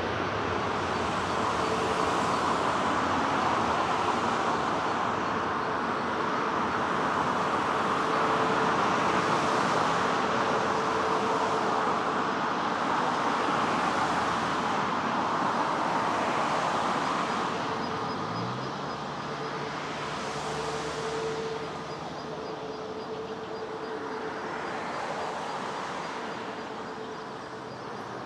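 Airbus A350-900's Rolls-Royce Trent XWB engines at takeoff power: a steady jet roar that slowly fades over the last third.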